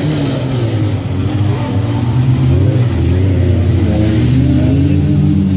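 Autocross car engine under hard acceleration, its pitch rising and falling as it revs and changes gear.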